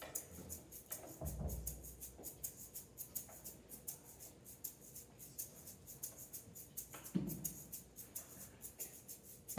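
Quiet pause in a hall: faint scattered clicks and two soft low thumps, about a second in and near the end, with no drumming yet.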